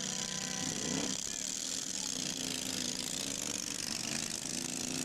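Racing lawn tractor engines running hard at high revs as the mowers race down the track: a steady, rattling engine buzz.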